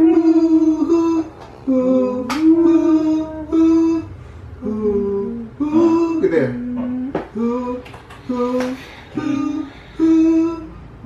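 A solo singing voice with no instruments heard, holding short steady notes that step up and down in a melody, phrase after phrase with brief gaps between.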